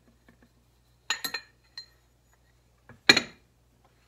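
Metal fork parts clinking and knocking together as a motorcycle front fork tube is slid into its slider and handled. There are several sharp, ringing clinks: a quick cluster of three about a second in, and a louder one about three seconds in.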